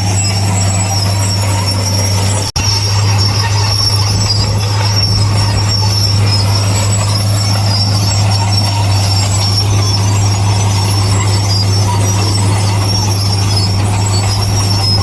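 Crawler bulldozer at work: a steady diesel engine drone with high-pitched metallic squealing from the steel tracks. The sound cuts out for an instant about two and a half seconds in.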